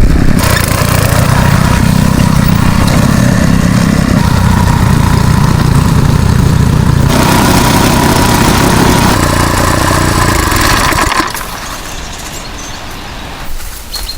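Motoblock (walk-behind tractor) engine running steadily and loud, then dropping away sharply about eleven seconds in, leaving quieter background with a few clicks.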